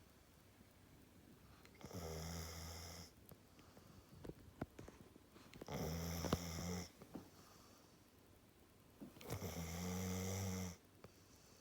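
A Staffordshire bull terrier snoring in deep sleep: three long snores, one roughly every four seconds, with quieter breathing and a few small clicks between them.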